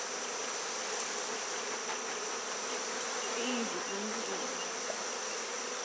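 Swarm of honeybees buzzing steadily around an opened hive.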